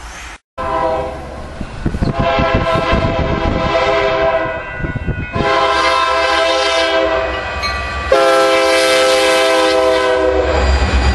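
Union Pacific diesel locomotive's air horn sounding three long blasts for a grade crossing, the third the loudest. Near the end the horn stops and the heavy rumble of the locomotives passing close takes over.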